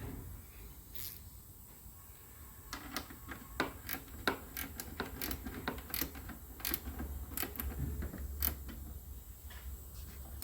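Irregular light clicks and knocks of hand tools and metal parts being handled, starting about three seconds in and going on in an uneven run.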